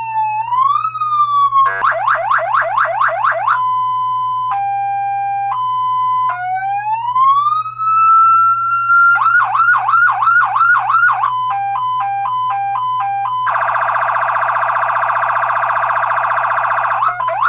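Fire truck electronic siren cycling through its tones: a rising wail, a fast yelp, a slow two-tone hi-lo, another rising wail and yelp, a quicker hi-lo, then a steady buzzing horn tone for about three and a half seconds. It ends on a short rising sweep. A steady low hum runs underneath.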